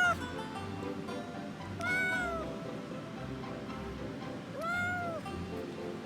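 Kitten meowing: two short meows, each rising and falling in pitch, about three seconds apart, with the end of an earlier meow at the very start. Background music plays underneath.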